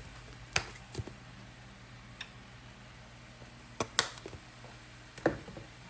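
Spice containers being handled while seasoning a pan: a handful of sharp clicks and taps, irregularly spaced, over a low steady hum.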